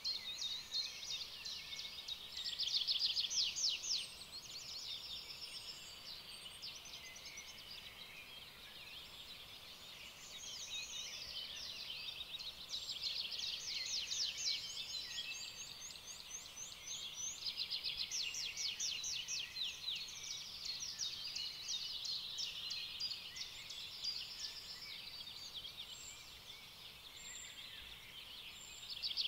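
Many small birds chirping and trilling together in rapid runs of high notes, with no other sound standing out.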